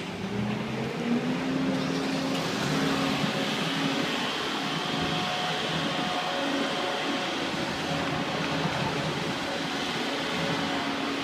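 Heavy construction machinery running; its engine note rises over the first second or so, then holds steady.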